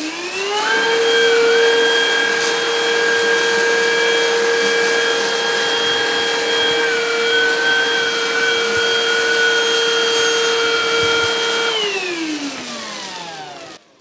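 PrettyCare W100 cordless stick vacuum running in normal mode on carpet. Its motor whine rises to speed at the start, holds steady, then winds down with a falling pitch from about twelve seconds in as it is switched off.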